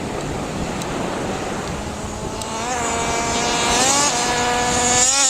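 A rushing hiss of wind and surf, then from about two seconds in a radio-controlled car's motor whines, its pitch rising several times as it speeds up.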